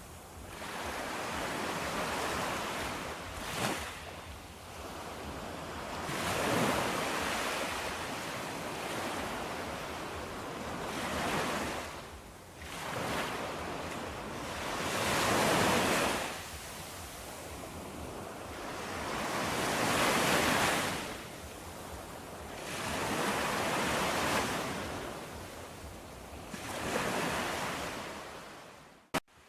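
Ocean waves washing in, a steady rushing that swells and fades every four or five seconds. Near the end the sound drops away and a single sharp click is heard.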